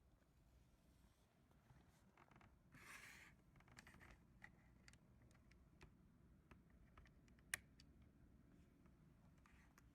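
Near silence with a few faint scattered clicks, a brief soft rustle about three seconds in and one sharper click later on.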